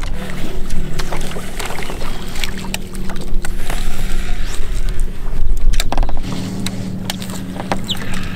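A boat's electric trolling motor humming steadily. It cuts out about four and a half seconds in and starts again at about six seconds. Scattered clicks and knocks are heard over it.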